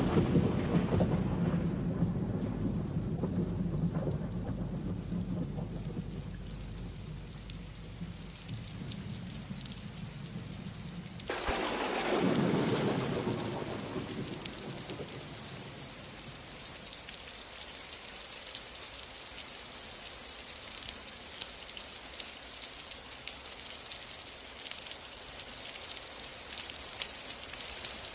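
Thunderstorm: a long roll of thunder slowly fades over the first ten seconds, and a second clap of thunder breaks about eleven seconds in and dies away within a few seconds. Steady rain goes on underneath and grows plainer as the thunder fades.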